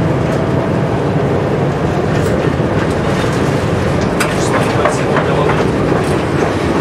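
Tram running along the track, heard from inside the driver's cab: a steady rumble of wheels on rails, with a run of sharp clicks and clacks from the wheels and track about two to five seconds in.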